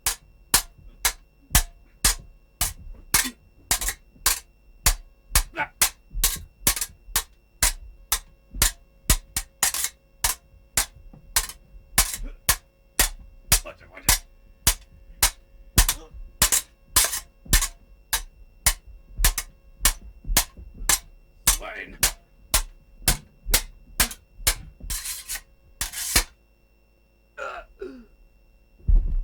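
A long series of sharp clicks or knocks, about two a second, with a few voice-like sounds mixed in; near the end the clicking stops, a short voice-like sound follows, then one loud thump.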